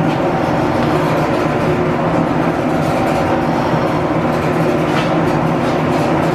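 A 32-inch G&E metal shaper running steadily, its ram stroking a shear tool across the top of a crosshead and peeling off curled chips, with the shop's line shafting and belts running behind it.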